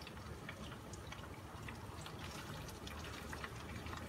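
Vegetables frying in hot oil in a pan, sizzling with many small irregular crackles and pops.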